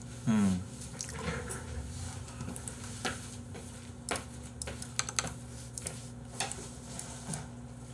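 Light clicks, knocks and rattles of a folding table and dishes being cleared away, scattered irregularly over a steady low hum. About a third of a second in there is a short, louder sound that falls in pitch, the loudest moment.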